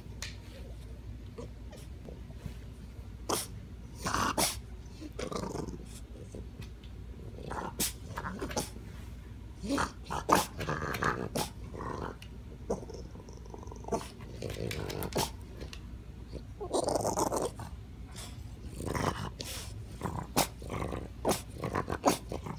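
French bulldog whining and grumbling in short, irregular bursts, with sharp clicks and scratches in between as he paws at a chair: a frustrated tantrum over a toy he can't reach.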